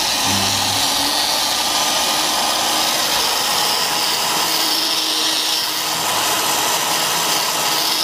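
Homemade handheld electric checkering tool running steadily, its small rotary cutter cutting checkering grooves into a wooden board.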